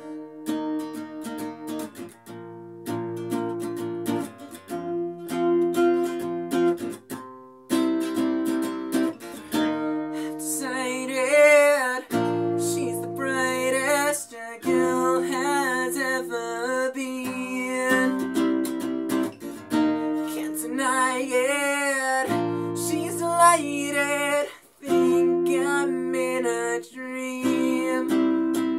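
Nylon-string classical guitar strummed in chords, with a man singing over it from about ten seconds in.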